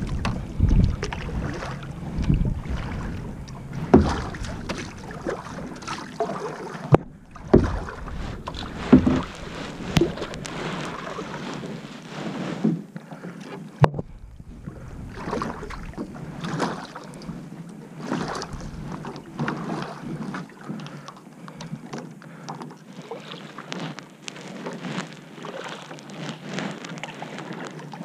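Kayak paddle strokes, the blades dipping and splashing in the water in an uneven rhythm, over a steady wash of water noise.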